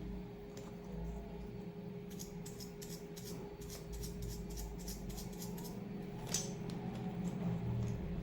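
Light, quick clicks from hands working on a mechanical keyboard. They come in a dense run in the middle and once more near the end, over a steady low hum.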